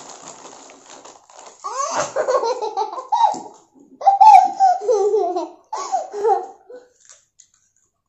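A young girl laughing hard and high-pitched, in two long bouts: one starting about one and a half seconds in, and a louder one from about four seconds, dying away near the end.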